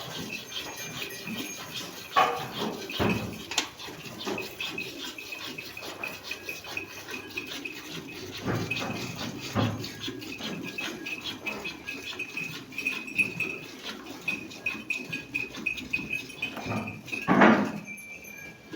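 Livestock moving and shuffling, with irregular knocks and rustles and one loud animal call near the end.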